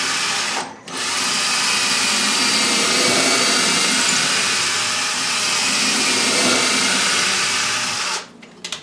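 Cordless drill running as it bores a pilot hole partway through the wooden face frames of two clamped kitchen cabinets. It stops briefly just under a second in, then runs steadily for about seven seconds and stops near the end.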